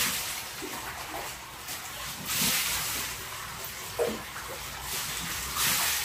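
Hot spring water scooped from the bath with a plastic basin and poured out, splashing in three surges: at the start, about halfway, and near the end.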